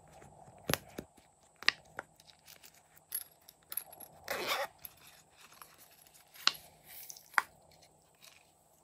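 Silicone pop-it fidget toy being pressed: a handful of sharp, separate pops at uneven intervals, with a brief scuffing sound of the toy being handled a little before the middle.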